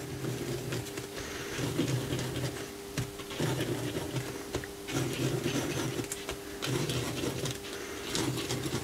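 Uni-ball Signo white gel pen drawing small swirls on watercolour paper: a series of pen strokes about a second each, with short breaks between them, over a faint steady hum.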